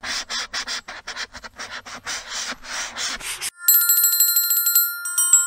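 Felt-tip marker scribbling on paper in quick strokes. About three and a half seconds in, a bell starts ringing in a rapid trill, and near the end a few bright chime notes step upward.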